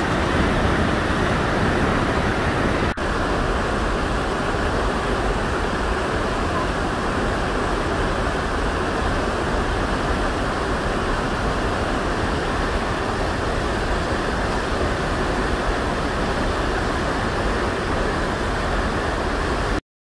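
A waterfall and the whitewater below it rushing steadily, a dense even roar of falling water. It drops out for an instant about three seconds in and cuts off suddenly just before the end.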